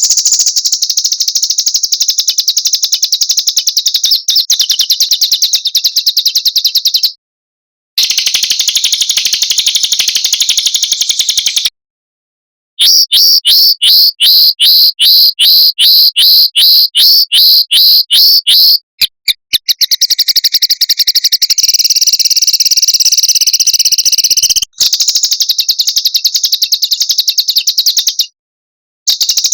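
Small songbirds' fast, high-pitched trills in spliced blocks that cut off abruptly, with short silent gaps between them, as in a masteran bird-training recording. In the middle comes a slower run of loud, evenly repeated chirps, about three a second.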